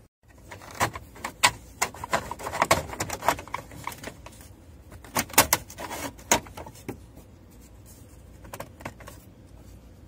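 Irregular clicks, taps and rattles of a screwdriver working the Torx screws and handling the plastic steering-column cover of a Dodge Ram. They are busiest in the first six seconds and fainter after.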